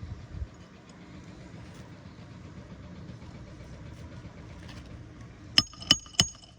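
Three quick hammer blows on a roofing nail near the end, about a third of a second apart, each with a metallic ring, driving the nail through an asphalt shingle. A steady low rumble runs underneath.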